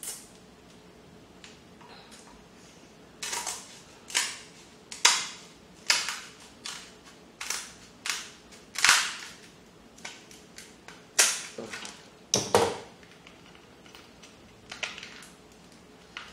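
Crab leg shells being cracked and snapped apart by hand: about a dozen sharp cracks and crunches at irregular intervals, starting a few seconds in.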